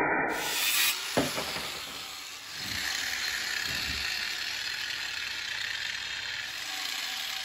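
Angle grinder cutting through a steel bolt to trim it flush, stopping about a second in. A single knock follows, then a steady hiss.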